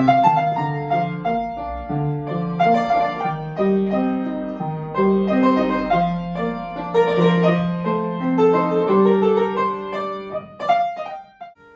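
A piano being played: a slow melody with held notes that stops shortly before the end. The piano is really out of tune.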